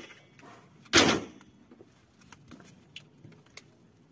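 Parts of a rabbit cage kit being handled: one loud, short clatter about a second in, then a few light clicks.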